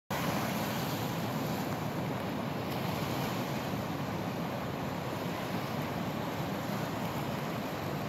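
Ocean surf: small waves washing onto a sandy beach as a steady, even rush of water.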